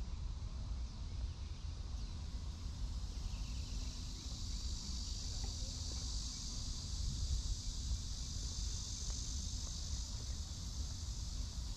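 Insects droning: a steady, high-pitched buzz that swells about four seconds in and eases off near the end, over a low rumble.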